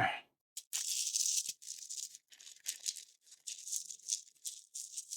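Mail packaging rustling and crinkling as a parcel is opened by hand: a run of short, irregular crackles.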